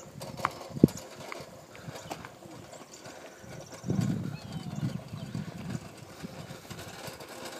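Small red toy wagon rolling on asphalt, its wheels rumbling and rattling, with footsteps in sandals alongside. A few sharp clicks come in the first second, and the rumble grows louder about four seconds in.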